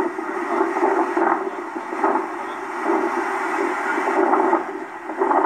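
Steady boat-ride noise of engine and water, played back through a BenQ GW2480 monitor's built-in speakers, sounding thin, with little deep bass or treble.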